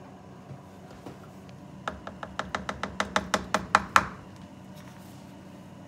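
A plastic measuring cup tapped against the pan to knock a half cup of sour cream loose: a quick run of about a dozen knocks over two seconds, growing louder.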